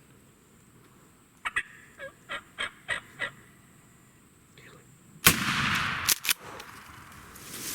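A run of about seven short turkey calls, about three a second, then a single loud shotgun blast with a long echoing tail about five seconds in, followed by two sharp clicks.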